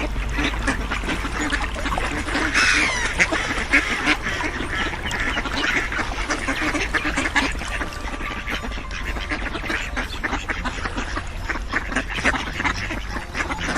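Ducks quacking, many short calls overlapping without a break, over a steady low rumble.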